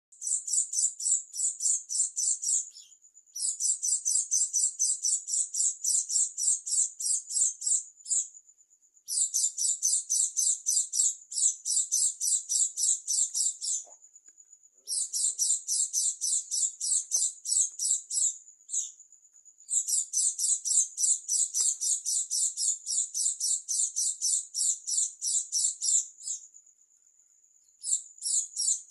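Pleci dakun white-eye singing: long, fast chattering phrases of very rapid high notes, each lasting several seconds, broken by short pauses in which a thin steady high tone holds.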